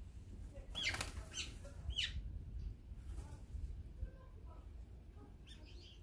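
Small birds calling at a backyard feeder: a few loud, sharp, swooping calls about a second and two seconds in, then softer, scattered chirps and another short run of high calls near the end.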